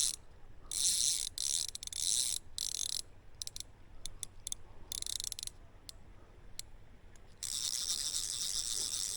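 Old fly reel's click-and-pawl drag ratcheting in short bursts while a hooked trout is played, turning into a longer, steadier buzz near the end.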